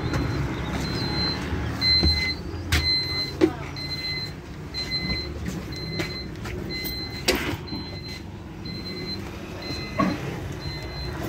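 A short, high electronic beep repeating steadily about every two-thirds of a second, over the low running hum and rumble of an electric bus. A couple of sharp knocks stand out.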